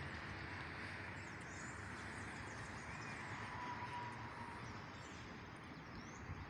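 Steady, faint city ambience: a distant traffic hum with a few faint bird chirps.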